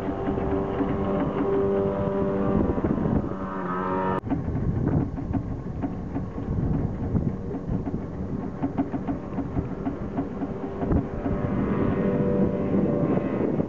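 Outboard motor on an aluminium tinnie running at planing speed, a steady drone whose pitch climbs briefly before a sudden cut about four seconds in. After that, rushing water and wind mostly cover it, and the engine's drone comes through again near the end.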